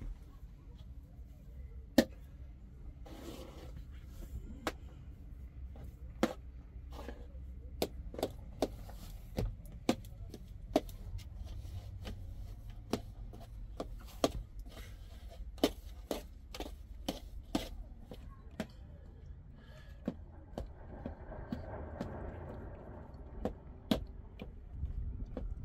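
A metal spoon knocking and scraping against a steel bowl while boiled potatoes are mashed, in irregular sharp clicks about once or twice a second over a low steady rumble.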